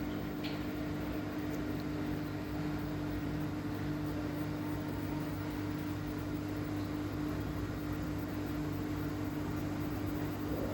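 Samsung washing machine running with a steady hum, one held tone over it, that cuts off near the end.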